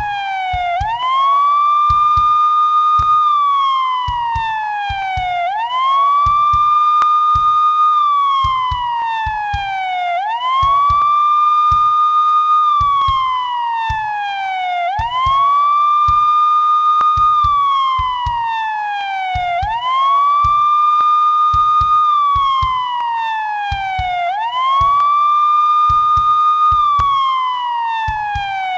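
Police siren wailing: the tone rises quickly, holds high for about two seconds, then slides slowly down, repeating about every five seconds.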